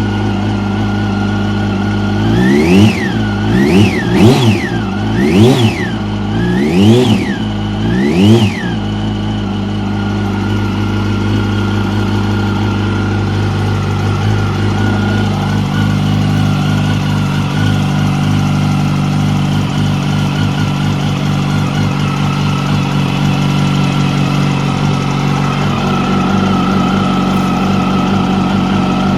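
2006 Yamaha YZF-R1's inline-four engine idling, blipped up in revs about six times in quick succession in the first nine seconds, then back to a steady idle. A ticking noise comes from up by the cylinder head.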